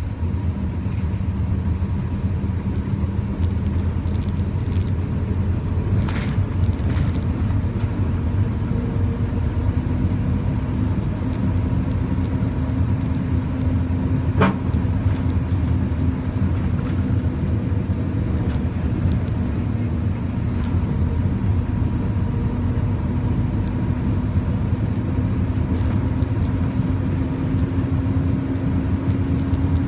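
A truck driving along: a steady engine drone over low road rumble, the engine note rising slightly near the end. There is a single sharp click about halfway through.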